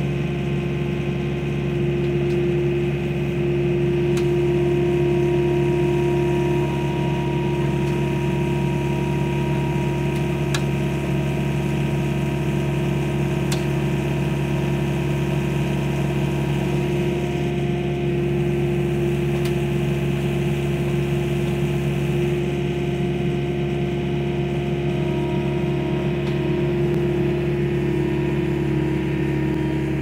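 Skid loader engine running steadily, its speed rising a little a few seconds in and again in the second half.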